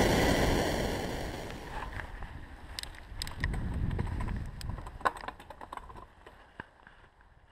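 Mountain bike ride heard through a chest-mounted action camera: wind on the microphone and tyres rolling over a dirt trail, with scattered irregular clicks and rattles from the bike. It fades out to near silence about six seconds in.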